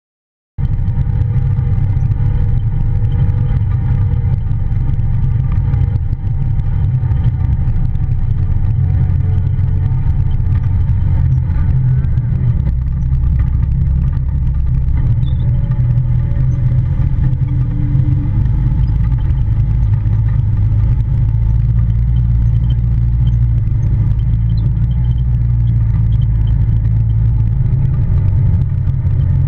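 Polaris Ranger side-by-side driving: a loud, steady low rumble with its engine note shifting slightly in pitch as it goes. The sound cuts in suddenly about half a second in.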